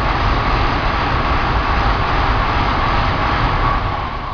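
Shinkansen bullet train passing at speed: a loud, steady rush that starts to fade near the end as the last cars go by.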